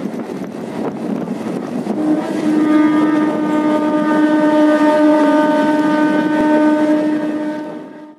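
Train running with a steady rumble and wind noise, then a train horn sounding one long, steady blast from about two seconds in, which cuts off suddenly near the end.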